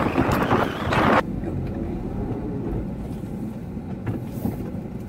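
Strong wind buffeting the microphone: a loud, rough gust for about the first second that cuts off abruptly, leaving a steady low rumble.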